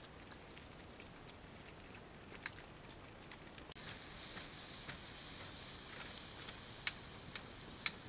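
A wok of broth boiling over an open wood fire: a steady hiss that starts abruptly about four seconds in, with a few sharp crackles and pops, loudest near the end. Before it there are only a few faint ticks.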